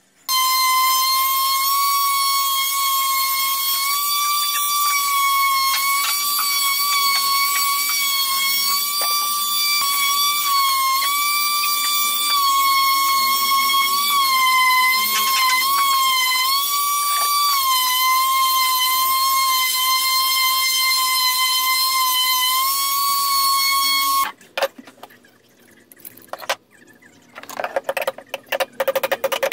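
Corded orbital sander running on pallet wood with a steady high-pitched whine whose pitch dips and wavers slightly as it is worked. It cuts off about 24 seconds in, and near the end rusty metal hinge straps clink as they are handled on a bench.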